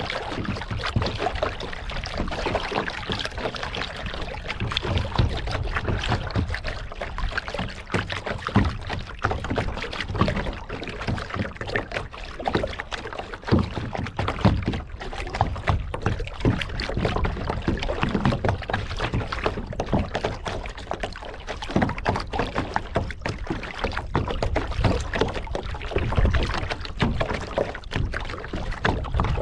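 Water sloshing and splashing around a kayak as it is paddled, with irregular splashes and a low rumble underneath.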